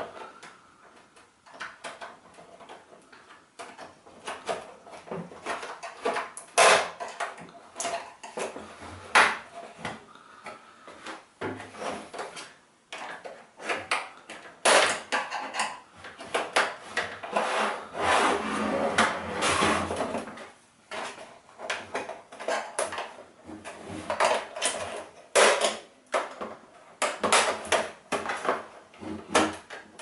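Snap clips of an all-in-one PC's back cover clicking loose as a case opener tool is worked along the seam, with irregular sharp clicks and stretches of scraping and handling of the casing.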